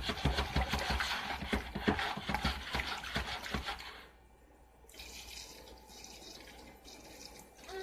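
Liquor pouring from a large glass bottle into a plastic drink cooler of fruit: a rapid run of glugs for about four seconds, then a quieter, steadier pour.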